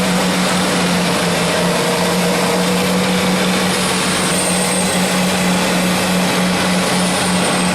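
Large wood chipper running, a steady machine hum under a constant noisy grinding of wood.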